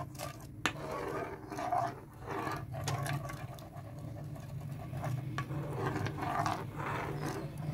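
Metal spoon stirring a milk, cream and sugar topping in a pan, scraping against the pan in irregular strokes over a steady low hum.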